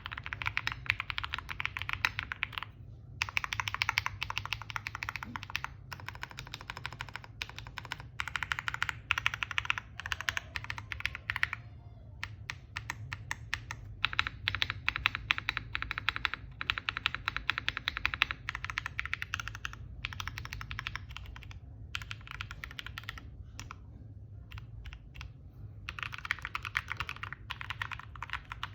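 Fast typing on a mechanical keyboard with KTT Waverider switches, a polycarbonate plate and DMK keycaps: a dense, steady patter of key clacks, broken by short pauses about three seconds in, near the middle, and again around two-thirds of the way through.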